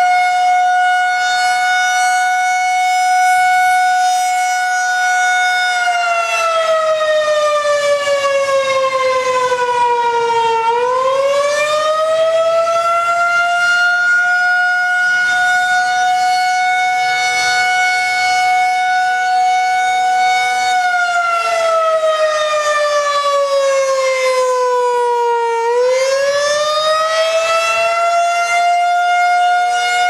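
Federal Signal 2001-130 rotating electromechanical tornado siren sounding a loud single tone that holds steady, slides down in pitch for several seconds, then winds back up to full pitch; this happens twice, about 15 seconds apart.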